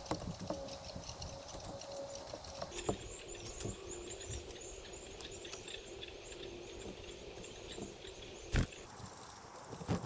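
Outdoor bird-feeder sounds: rapid, repeated high chirping from small birds, scattered light taps and knocks of birds on the wooden platform and birdhouse, and a faint steady hum. The loudest event is a single sharp knock about eight and a half seconds in.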